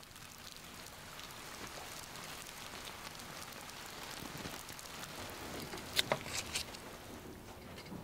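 Steady rain pattering, building a little over the first few seconds, with a quick run of three or four sharp taps about six seconds in.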